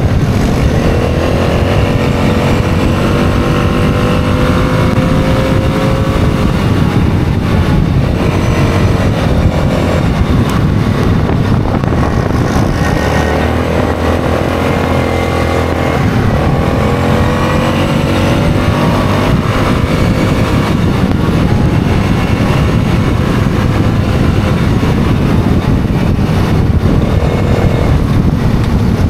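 ATV engine running under way, its pitch climbing and easing off as the throttle opens and backs off, with a dip about halfway through before it climbs again. A steady rush of wind and gravel road noise lies underneath.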